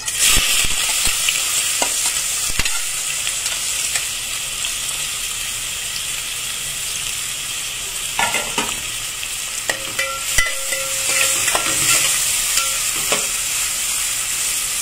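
Chopped onions sizzling in hot oil with whole spices, a steady frying hiss that starts at once as they go into the pan. A metal spatula scrapes and knocks against the metal pot now and then, more often from about eight seconds in.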